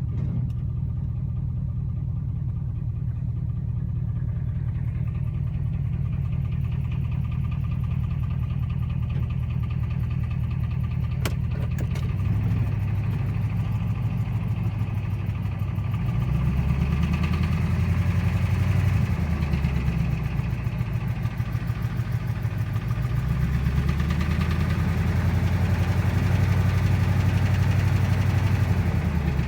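Car engine idling with a fast, regular knock in its running, the kind of noise that may come from a lifter or from a rod bearing. It is raised off idle briefly about halfway through and again for several seconds near the end.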